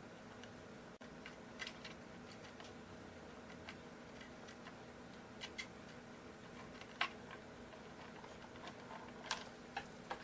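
Scattered small, sharp clicks and taps of hand tools against guitar hardware and wiring during desoldering, over a faint steady hum. The loudest click comes about seven seconds in, with a few more close together near the end.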